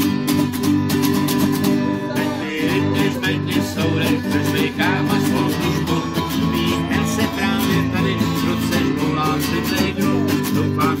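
Acoustic guitars strummed in a steady rhythm, with a small group singing along to the chords.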